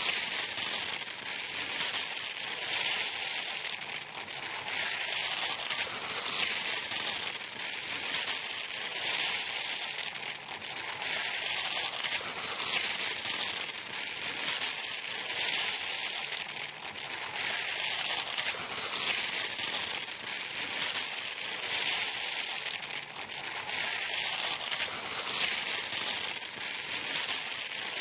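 Dry sand trickling from a pipe into a plastic toy truck's bed, a steady crackling hiss that swells and eases but never stops.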